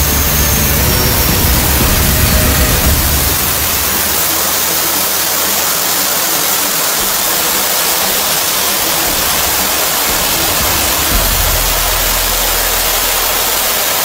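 Loud, steady hiss of a pressurized jet blasting a white cloud out of a hand-held nozzle, with a low rumble joining near the end.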